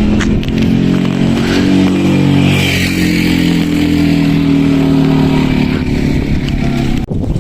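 A motor vehicle's engine running, its pitch shifting up and down, breaking off abruptly near the end.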